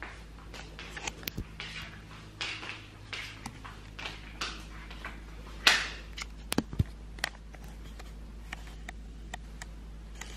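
Handling noise from a phone being moved around: a run of short brushing rustles, then a few sharp clicks near the middle. After that only a faint steady room hum with the odd tick is left.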